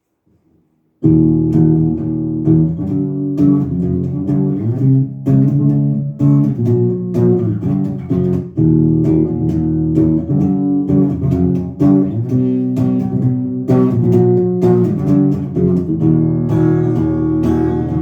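Electric guitars and bass guitar playing the instrumental introduction of a song, starting suddenly about a second in after near silence.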